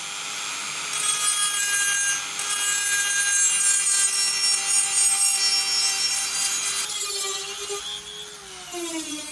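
Small power tool running with a steady whine over a rough rubbing hiss as it abrades a surface; its pitch sags and drops near the end.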